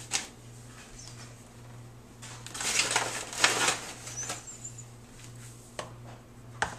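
Rustling and scraping as flour is scooped with a plastic measuring cup and tipped into a plastic tub of bait mix, loudest from about two and a half to four and a half seconds in, with a few small knocks. A low steady hum runs underneath.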